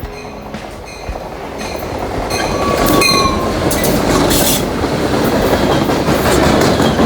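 Freight train rolling past, its rumble building over the first few seconds and then holding steady and loud, with a brief high wheel squeal about three seconds in.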